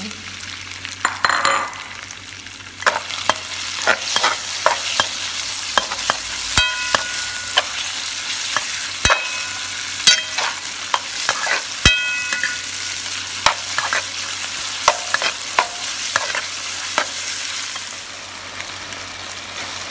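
Chopped onion, imitation crab and minced pork sizzling in oil in a wok while a metal spatula stirs them, scraping and clanking against the pan. A few of the strikes ring briefly with a metallic tone.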